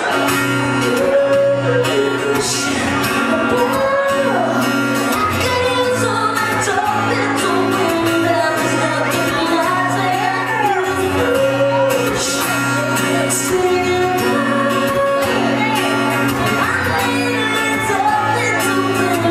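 A woman singing a song live while strumming an acoustic guitar, her voice holding and bending long notes over steady chords.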